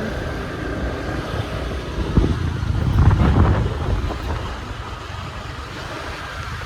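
Small scooter engine running while riding, with wind buffeting the microphone; the rumble swells louder for a second or so about two seconds in.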